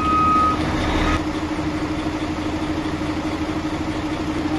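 Mercedes-Benz Actros truck engine idling steadily, with a repeating electronic beep that stops about half a second in. The truck is under diagnosis for an unusual engine sound and loss of pickup.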